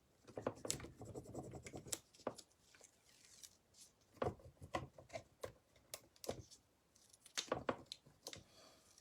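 Faint, irregular scratchy rubbing strokes and light clicks as a rub-on furniture transfer is burnished down onto painted wood with an applicator stick and fingertips.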